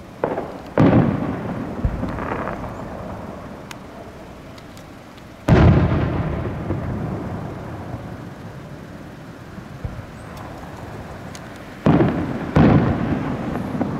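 Aerial fireworks shells bursting: five booms, a pair about a second in, the loudest alone near the middle, and another pair near the end. Each dies away slowly over a second or two.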